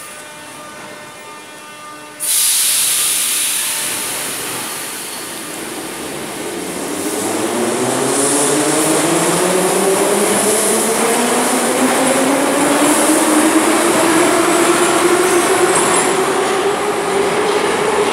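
Moscow Metro train pulling out of a station: a steady hum while it stands, then a sudden loud hiss of compressed air about two seconds in, after which the traction motors whine with a pitch that rises steadily and gets louder as the train accelerates away.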